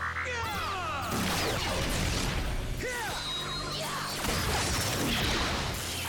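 TV action-scene sound effects over background music: weapon swishes, impacts and sweeping electronic zaps of energy blasts, several falling and rising glides in pitch, most crowded in the first second and again around three seconds in.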